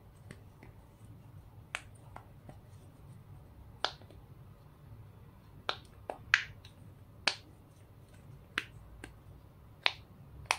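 Silicone bubbles of a pop-it fidget phone case pressed in one at a time by fingers, each giving a sharp pop. About a dozen pops come at irregular intervals, with a quick cluster about six seconds in.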